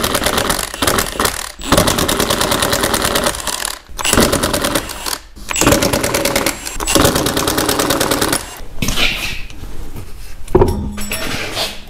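Impact wrench hammering in repeated bursts of a second or two each, with short pauses between, while parts come off a car's rear suspension.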